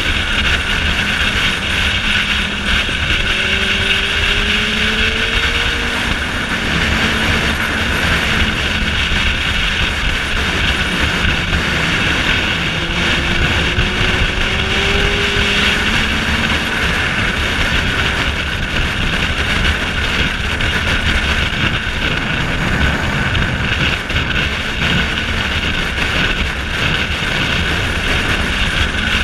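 Steady wind rush over a helmet-mounted camera while riding a motorcycle at road speed, with the engine's low running note underneath. A couple of times the engine note rises briefly as the bike accelerates.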